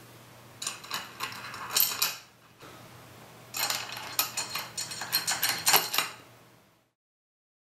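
Small steel bolts and an aluminium joining strip clinking and scraping against aluminium extrusion profiles as they are set in place by hand. The sound comes in two bursts of light metallic taps, the second longer and busier.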